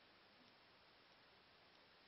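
Near silence: faint room tone and hiss, with a faint tick repeating evenly about every two-thirds of a second.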